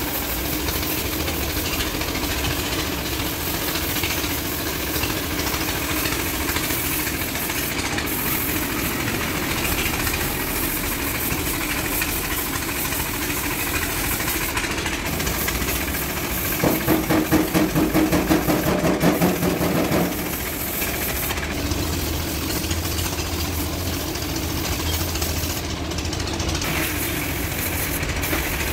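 Steady running of a motor, with the hiss of a compressed-air paint spray gun coming in short spells as paint is sprayed. Past the middle, a louder rhythmic pulsing of a few beats a second lasts about three seconds.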